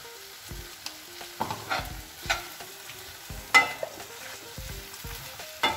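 Metal masher scraping and knocking against a cast-iron skillet as the pav bhaji vegetables are mashed and stirred, over a low sizzle. Irregular scrapes and clanks, the loudest about three and a half seconds in.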